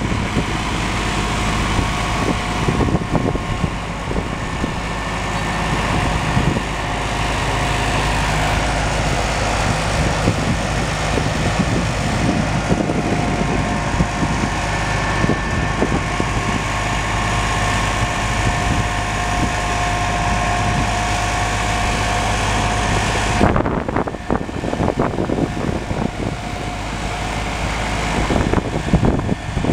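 Engine of a caged driving-range tractor running steadily as it tows a golf ball picker, with a thin steady whine over the hum. The sound changes abruptly about two-thirds of the way through.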